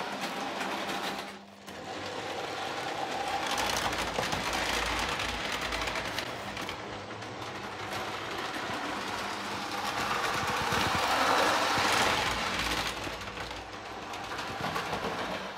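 Lionel O gauge electric toy trains running on a layout: a steady whir of locomotive motors and gears with wheels rattling over the track, swelling louder twice as a train passes close.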